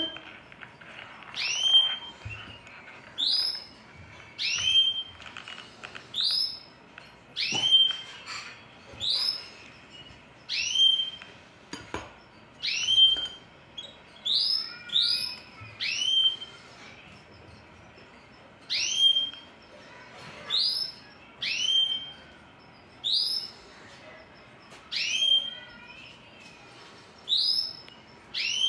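Goldfinch hybrid (mule) calling from its cage: a short call that slides down in pitch and then levels off, repeated about every second and a half, now and then twice in quick succession.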